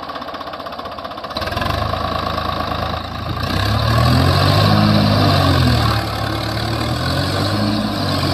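Swaraj 744 tractor's three-cylinder diesel engine revving up about a second and a half in and pulling hard under load as the tractor drives its sunken rear wheel out of loose sand. The pitch rises to its loudest stretch, then settles a little lower about six seconds in.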